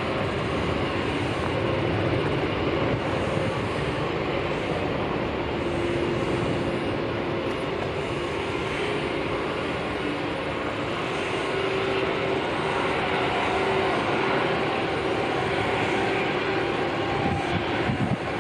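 Jet airliner engines running, a steady rushing noise with a faint hum that comes and goes.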